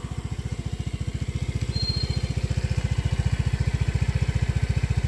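Small motor scooter engine idling with a fast, even putter, a little louder from about two seconds in.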